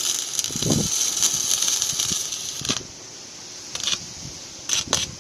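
MIG welder arc crackling and sizzling steadily as steel is welded, stopping a little under three seconds in; two short bursts of crackle follow, like quick tack welds.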